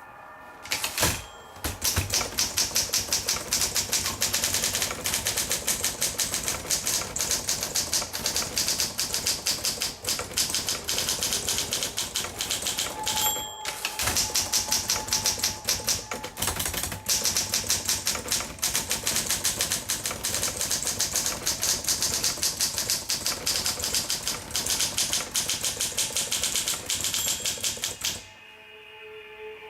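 1958 Olympia SM3 manual portable typewriter being typed on steadily, with rapid keystrikes. About halfway through, the margin bell rings once and there is a short pause before the typing resumes. The typing stops near the end.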